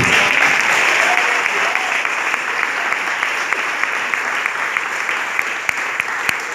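Congregation applauding: dense clapping that slowly thins out, leaving a few separate claps near the end.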